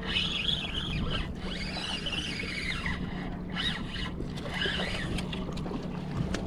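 Birds calling in several short spells of wavering, high chirps over a steady low hum.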